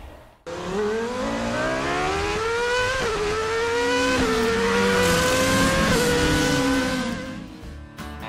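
Car engine accelerating hard through the gears, its pitch climbing, then dropping sharply at each of three gear changes before climbing again, and fading away near the end.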